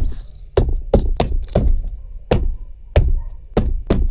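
A run of about nine sharp knocks and thuds at an irregular pace, typical of hands striking a car's interior trim to seat it.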